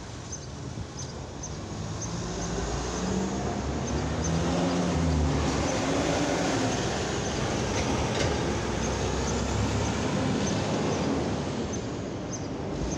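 Street traffic: a semi truck and cars driving past, the truck's diesel engine swelling to its loudest about four to six seconds in, then easing off.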